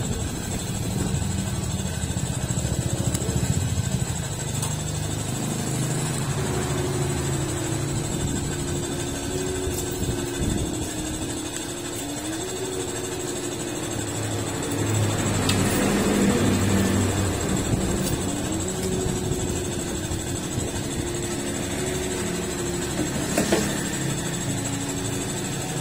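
An engine running steadily in the background, its pitch wandering slowly up and down. A single sharp click near the end.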